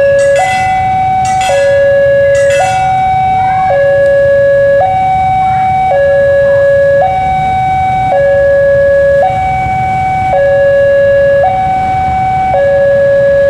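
Level-crossing warning alarm sounding a loud two-tone hi-lo signal, switching pitch about every second, to warn of an approaching train. Under it runs the low, steady rumble of the diesel locomotive coming up to the crossing.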